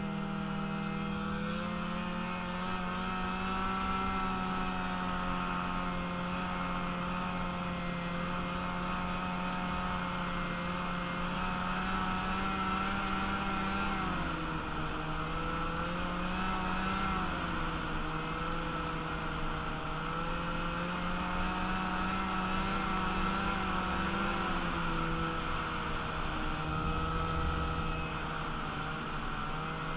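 A vehicle engine running at a fairly steady speed during a ride, its pitch dipping and rising slightly a few times.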